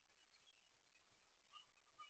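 Near silence with faint, scattered bird chirps; about one and a half seconds in, a bird starts a quick run of repeated notes.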